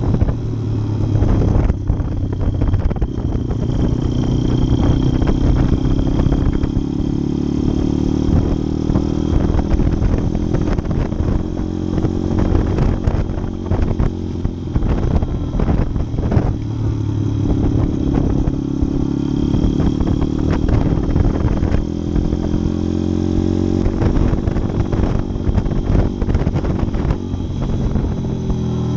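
Orion RXB150L's four-stroke engine running while the bike is ridden, its pitch repeatedly rising and falling as it revs up and eases off, with scattered light clatter.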